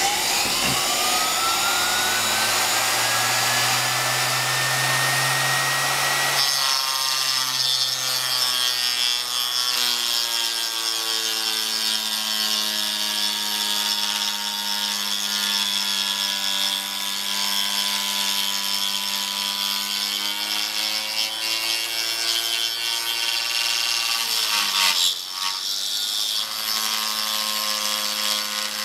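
A handheld router, slowed by a speed control, spins up with a whine that rises over the first few seconds. At about six seconds its carbide bit starts milling cast iron: a steady cutting sound with a rough rasp and a slowly wavering pitch as it feeds along the cut. There is a brief dip and change about 25 seconds in.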